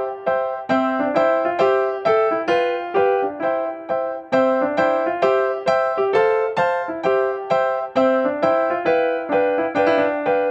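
Background music: a light piano or electric-piano tune with an even run of notes, several a second.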